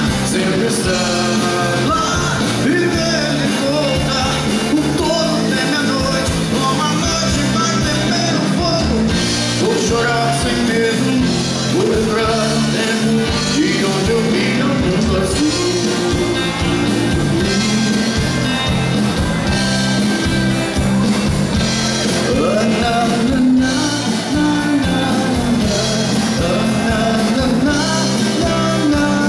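Live rock band playing loudly: a male singer sings into a microphone over drums and electric guitars.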